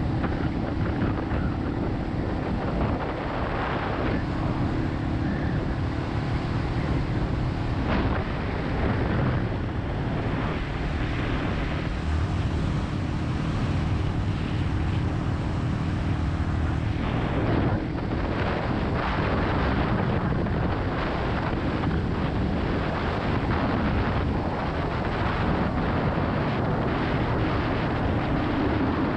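Yamaha XT250's single-cylinder four-stroke engine running steadily while riding, mixed with wind noise on the microphone; the engine note changes about seventeen seconds in.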